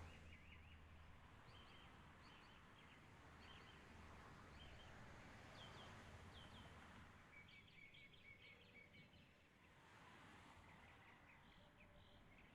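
Birds chirping faintly: many short, high calls repeating one after another over a quiet background hum.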